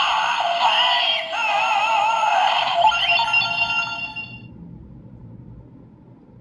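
Kamen Rider Zi-O transformation-belt toy, set to Geiz, playing a Ridewatch's electronic transformation audio: a synthesized announcer-style voice over music, which stops about four seconds in.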